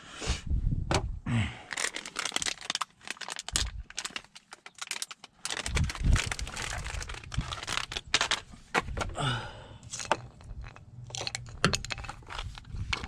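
Handling noise: a dense, irregular run of clicks, crackles and crinkling rustles.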